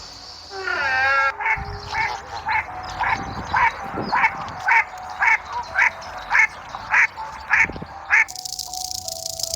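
An animal calling over and over in short, evenly spaced calls, about two a second, roughly a dozen in all, stopping near the end.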